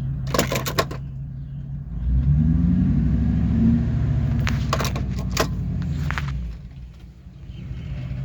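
Eight-cylinder gasoline truck engine running rough with a heavy misfire, picking up speed about two seconds in, easing off near the end and then climbing again; the misfire comes from failing ignition coils. Two short clusters of sharp rattling clicks sound over it, one near the start and one past the middle.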